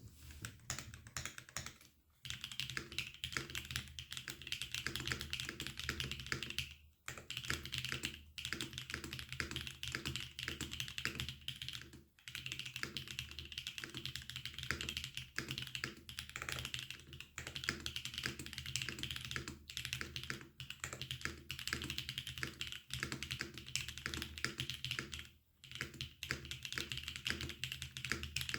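Typing on a Neo65 mechanical keyboard with Loopy linear switches, an aluminium plate, no foam and GJTK Zen keycaps: a fast, continuous stream of clacky keystrokes, broken by a few short pauses.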